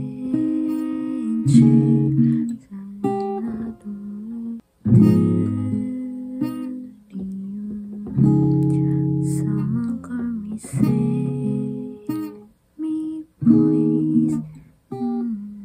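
Acoustic guitar strummed in chords during a beginner's practice. Each chord rings for a second or two, then breaks off with short stops between chords as the player changes fingering.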